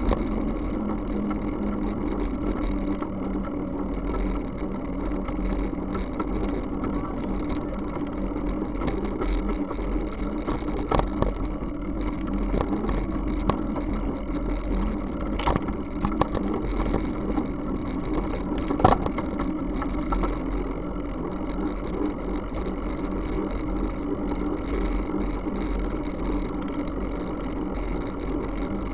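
Steady rumble of a moving bicycle: wind on the camera microphone and tyres rolling on wet asphalt, with a few short sharp knocks, the loudest about two-thirds of the way through.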